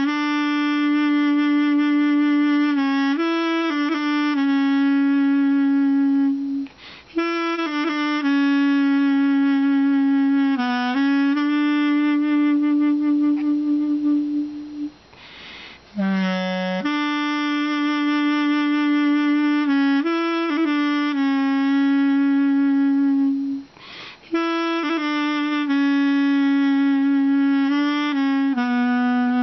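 Solo duduk, the Armenian double-reed woodwind, playing a slow melody of long held low notes with brief ornamental turns. It plays in phrases of about seven or eight seconds, with short breaths between them.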